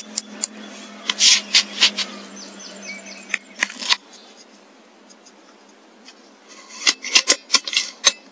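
Handling noise close to the microphone of a rifle-mounted digital scope: short rasping rubs and clicks, in a cluster about a second in and again near the end, with a quieter spell between.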